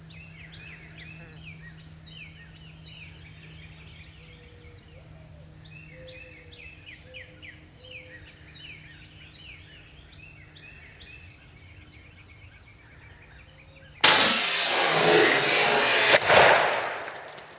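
Small birds singing in quick falling chirps over a faint low hum. Near the end comes a sudden very loud blast from a 20-gauge shotgun, with a second jolt and a noisy tail of about three seconds before it dies away.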